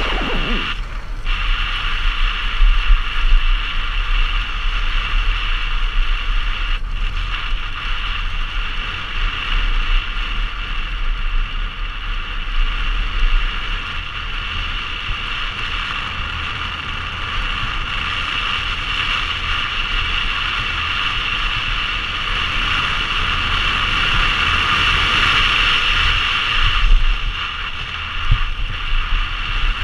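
Wind rushing over a helmet-mounted action camera's microphone as a mountain bike rolls fast over grass, with a steady low rumble and small knocks from the bumps.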